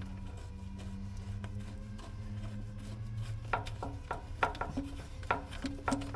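Hand tools scraping and clicking against metal hose fittings, with a cluster of sharp, irregular clicks in the second half, over a steady low hum.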